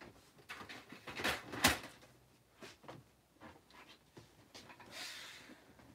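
Scattered knocks and clicks of objects being handled, the loudest a sharp click just under two seconds in, with a brief rustle around five seconds in.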